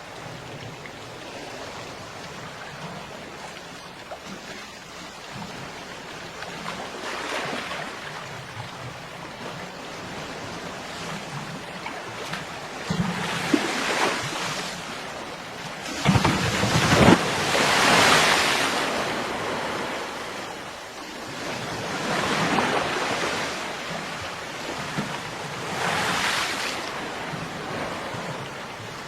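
Ocean surf: waves break and wash up the beach in surges every few seconds, the biggest just past the middle, over a steady background wash.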